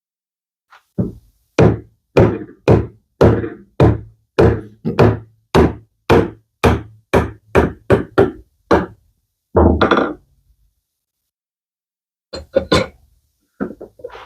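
Repeated hammer blows on a wooden frame, driving its mortise-and-tenon joints together during a dry assembly: about fifteen steady strikes at roughly two a second, a heavier double blow, a pause, then a few lighter knocks near the end.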